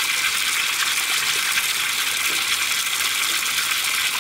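Water pouring steadily from an outdoor standpipe into a steel pot already full of water, splashing over hands rinsed under the stream: a continuous even gush.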